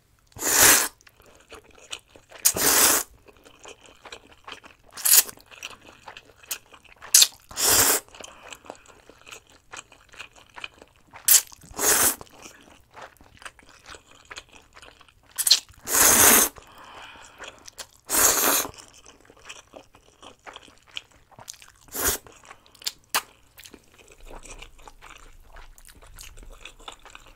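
A person eating instant stir-fried noodles close to the microphone: loud slurps of noodles every few seconds, with wet chewing and small mouth clicks between them.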